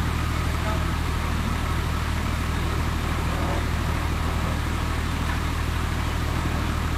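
An engine running steadily at a constant speed, a low even hum with a hissing layer over it.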